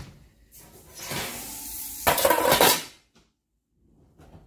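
Stainless steel cooking pot and metal lid being handled on an electric stovetop: a scraping rattle about a second in, then a louder metallic clatter with a brief ring.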